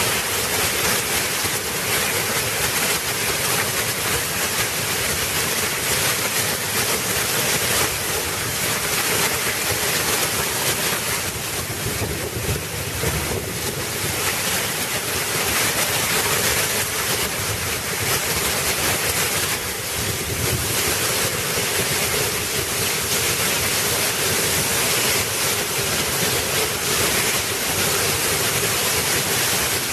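Torrential rain pouring down hard and steady, a dense unbroken roar, with wind buffeting the microphone.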